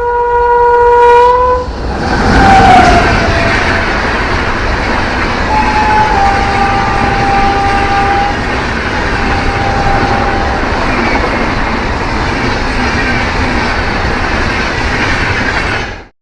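Indian Railways WAP-7 electric locomotive sounding a steady horn note that stops after nearly two seconds as the express sweeps past at about 130 km/h, followed by the loud, continuous rush of its LHB coaches going by at speed. The sound cuts off abruptly near the end.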